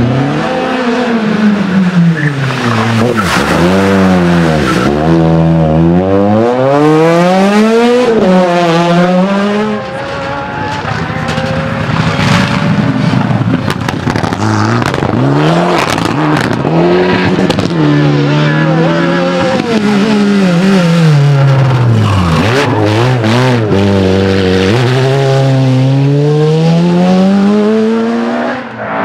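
Several rally cars, among them a Mitsubishi Lancer Evolution X, driven hard past one after another. Their engines rev up and drop back over and over through gear changes and lifts for the corners.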